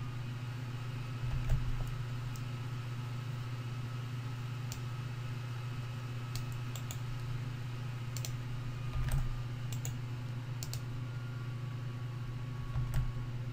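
Computer keys clicking now and then, about a dozen separate keystrokes spread out, over a steady low electrical hum.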